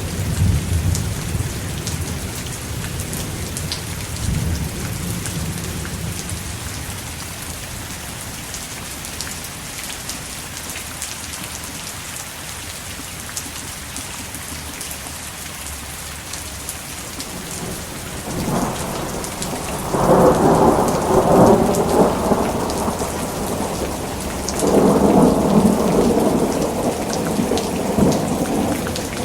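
Thunderstorm: steady heavy rain with rolling thunder. A low rumble dies away over the first few seconds, then two louder rolls of thunder come in the second half.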